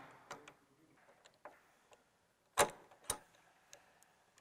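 Metal clicks and knocks of hand tools on a motorcycle's rear shock linkage screw as an 8 mm hex-bit socket is worked onto it: a few light clicks, then two sharper knocks about half a second apart a little past the middle.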